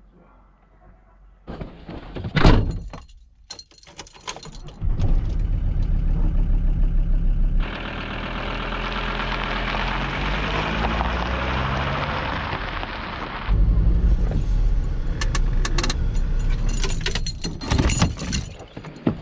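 Camper van: a sharp knock like a door shutting, then the engine starts and runs. The van drives past over gravel with tyres crunching as its engine note falls away, and then the engine is heard close up again with a few clicks.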